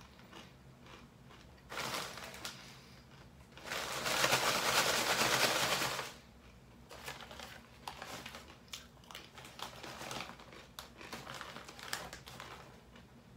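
Plantain chips being chewed, a run of irregular crisp crunches. About four seconds in, the chip bag crinkles and rustles loudly for about two seconds.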